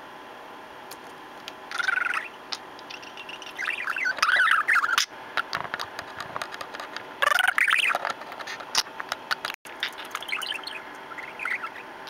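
Pet budgerigar chattering and warbling close to the microphone in several short bursts of quick, wavering chirps, with scattered small clicks in between.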